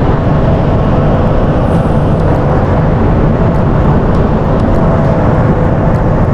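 Loud, steady ship's machinery noise during unmooring: a deep rumble with a faint constant hum above it.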